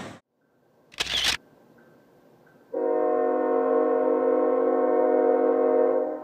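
Diesel locomotive air horn of a Union Pacific stack train: one long, steady multi-note chord held for about three seconds, then dropping away much fainter. About a second before it there is a single short click, like a camera shutter.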